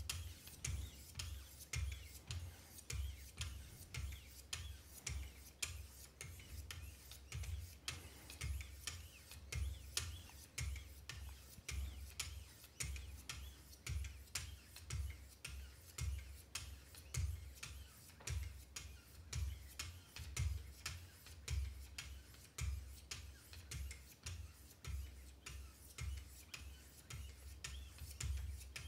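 Wicked Edge guided sharpener's 1500-grit diamond stones stroked along the edge of a Benchmade Mini Reflex II blade in a steady rhythm. Each stroke is a short rasping scrape with a dull knock beneath it.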